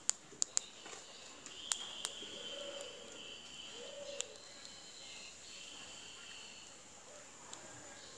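A palm squirrel crunching paddy grain, heard as sharp clicks, four in the first two seconds and one about four seconds in. Behind them are faint bird chirps and a steady high-pitched tone.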